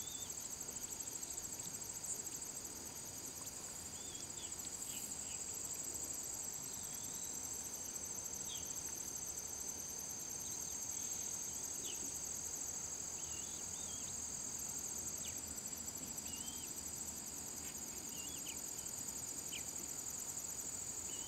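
Steady high-pitched insect chorus, several trills running together, with short high bird chirps now and then.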